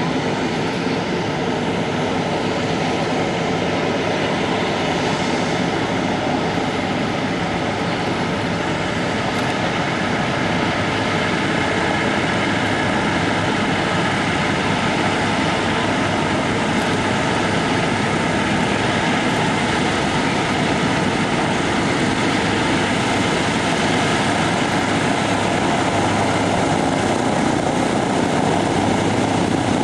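B-24 Liberator's four Pratt & Whitney R-1830 radial engines running at low taxi power, a steady drone that grows slightly louder as the bomber taxis closer.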